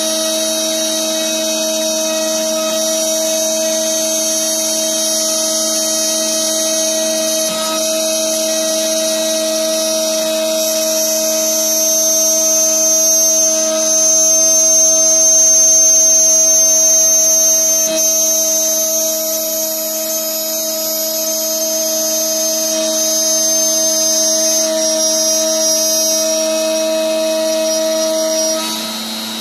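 CNC router spindle running at high speed with a steady, high-pitched whine, its bit milling a truss rod channel along a wooden guitar neck blank. The sound swells slightly midway and drops a little near the end.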